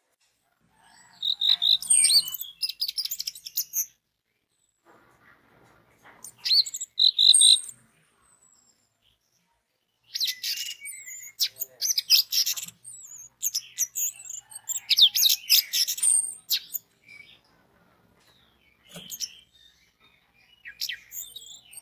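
Orange-headed thrush (anis merah) singing in four bursts of song, high varied whistles and quick chattering notes, separated by silent pauses. The longest phrase comes in the middle.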